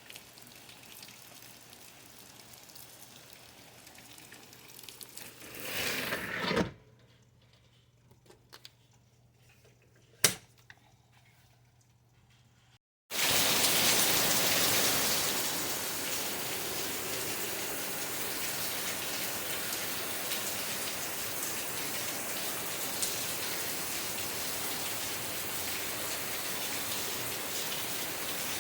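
Steady rainfall that swells, then drops away abruptly. A quiet stretch follows with a few small clicks and one sharp click. After a short break, heavy rain sets in, louder and steady.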